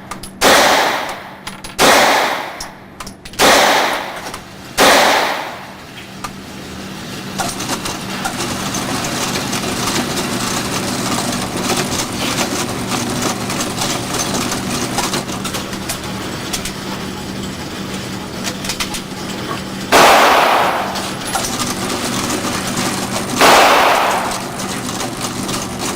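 9mm gunshots fired one at a time, about one and a half seconds apart: four in the first five seconds, each followed by a short ring. After a long stretch of steady background noise, two more shots come about twenty and twenty-three seconds in.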